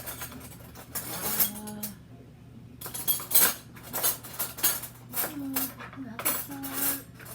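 Metal cutlery clinking and rattling in repeated short clicks as someone sorts through the utensils looking for a spoon.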